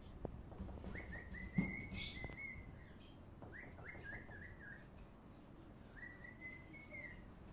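High whistling in three phrases: a long note that rises at its start and then holds level, a quick run of short stepped notes, then another long held note. A single sharp knock sounds about one and a half seconds in.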